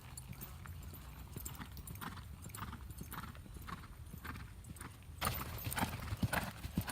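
A horse's hoofbeats at a lope in an arena, striking in a steady rhythm. The hoofbeats get louder from about five seconds in.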